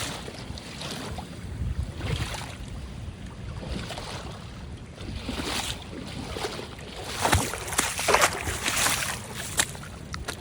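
Sea waves splashing and washing in surges every second or two, with wind on the microphone. Louder splashes come near the end.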